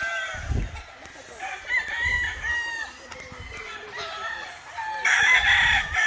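Several gamefowl roosters crowing, their crows overlapping, with the loudest crow near the end.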